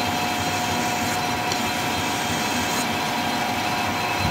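Metal lathe running steadily with a constant whine, while a flat hand file rubs against the spinning steel shaft to chamfer its end before threading.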